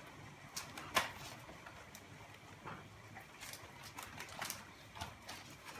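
Scattered knocks, scuffs and rustles of a dog-and-horse tug-of-war over a cloth toy: a German shepherd yanking and rearing against a wooden stall door while the horse holds the other end. The loudest knock comes about a second in.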